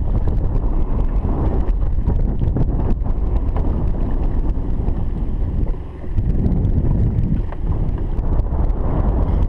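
Wind buffeting the action-camera microphone, a steady low rumble that eases briefly about six seconds in.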